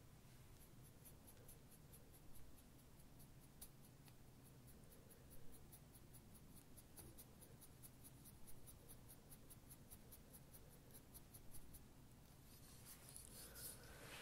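Near silence: faint soft rubbing strokes close to the microphone, as in an ASMR touch trigger. A faint, even high ticking runs at about four ticks a second.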